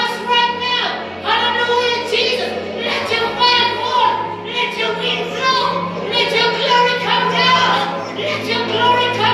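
A woman singing into a microphone over held keyboard chords, the chord changing about three seconds in.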